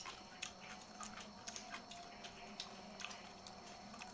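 Faint, irregular crisp clicks and crackles of a salak (snake fruit) being peeled by hand, its scaly skin cracking and splitting away.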